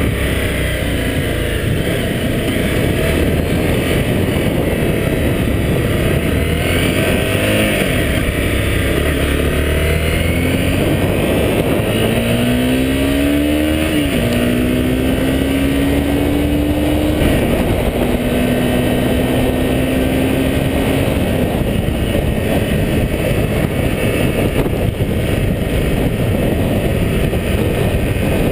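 Honda CBR250R's single-cylinder engine under way, heard from the rider's position over a constant rush of wind on the microphone. Around the middle the revs climb and fall back twice as the rider shifts up, then hold steady at cruising speed.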